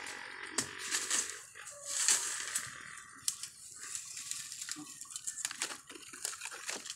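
Dry bamboo leaf litter and twigs rustling and crackling as someone works through it by hand, with many irregular small snaps.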